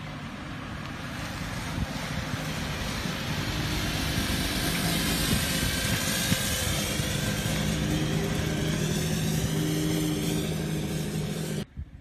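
Truck-mounted mosquito sprayer running on a pickup as it drives slowly past: a steady engine hum under a broad hiss, growing louder as it comes close. The sound cuts off abruptly near the end.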